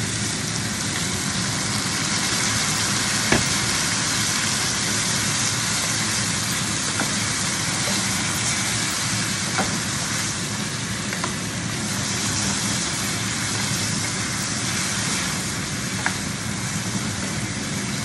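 Pork ribs, onions and tomatoes sizzling steadily in a hot frying pan as vinegar is poured in, then stirred with a plastic spoon. There are a few sharp clicks of the spoon against the pan.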